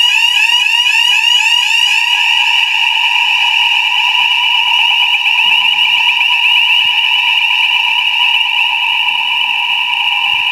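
Electronic fire alarm sounder sounding continuously: a loud, high-pitched tone that sweeps rapidly and repeats a few times a second, a warbling evacuation signal.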